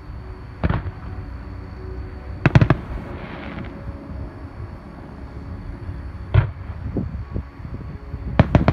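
Aerial fireworks shells bursting in the distance: a single bang about a second in, a loud quick cluster of bangs at about two and a half seconds, another bang past six seconds, and a rapid string of bangs near the end, over a low steady rumble.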